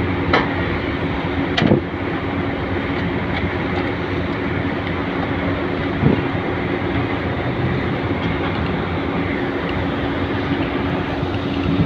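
Ferry's engines running with a steady low drone and hum, with a few sharp knocks about half a second in, near two seconds, about six seconds in and at the end.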